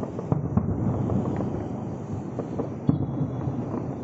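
Fireworks bursting in the distance: a run of booms and cracks, one sharp a few tenths of a second in and the loudest about three seconds in, over a steady low rumble.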